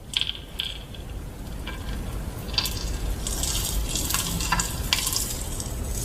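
Pooping sound effect: a steady noisy hiss scattered with clicks and small splats over a low rumble, growing louder about two and a half seconds in.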